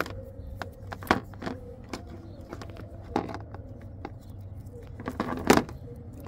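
Light handling noise: a few scattered clicks and rubs as a coil of thin insulated wire is moved over a plastic engine-bay cowl, the loudest about five and a half seconds in, over a faint steady hum.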